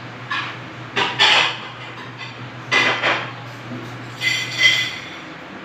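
Hard household objects clattering and knocking in four short bunches, like plates and utensils being handled, over a steady low hum.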